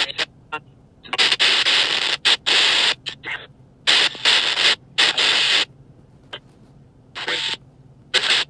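Sono X10 Spirit Box Pro app sweeping through radio frequencies: choppy bursts of static hiss, cut off every fraction of a second, with short quiet gaps between them.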